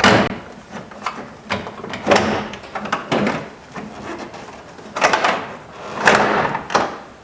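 Replacement exterior door handle being pushed and worked into the truck's door: a string of irregular knocks and clunks with some scraping as it is moved around to seat its pins.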